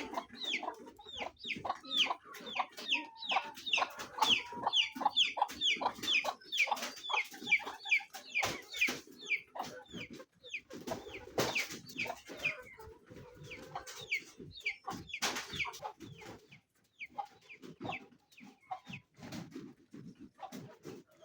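Chickens clucking and calling, a rapid run of short calls that fall in pitch, thinning out about halfway through. A few sharp knocks stand out a little past the middle.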